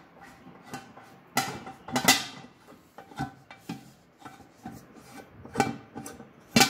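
Wooden handle being screwed by hand into the metal bracket on an aluminium tandoor lid: a string of short, irregular clicks and scrapes of wood and metal, the loudest a sharp knock near the end.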